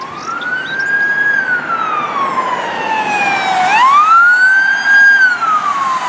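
Police car siren wailing, its pitch rising and falling slowly, one full cycle taking a little under four seconds, over a steady hiss of road traffic.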